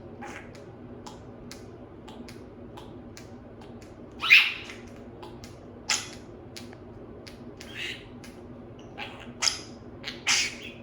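Budgerigar making short harsh chirps and squawks among quick scattered clicks, the loudest call about four seconds in and several more close together near the end.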